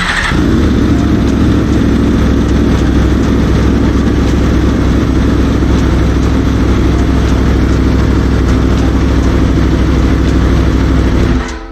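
2021 Aprilia Tuono V4's V4 engine, with an SC-Project SC1-R exhaust, starting right at the beginning and idling steadily, then shutting off near the end.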